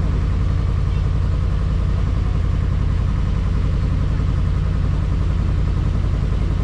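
Tour boat's engine running at a steady speed: a loud, even, rapid low throb that holds without change.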